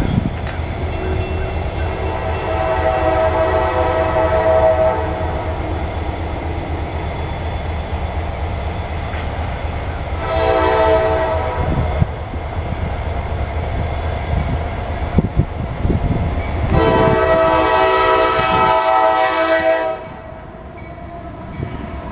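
Norfolk Southern diesel locomotive's air horn sounding for the approaching intermodal train: a long blast, a short one, then another long one, over a steady low rumble of the oncoming train.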